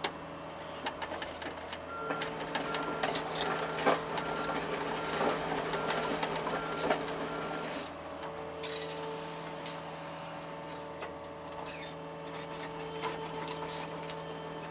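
John Deere 75 excavator's diesel engine and hydraulics running with a steady drone, rising under load with clattering knocks between about 1 and 8 seconds in. A beep repeats about twice a second during that stretch.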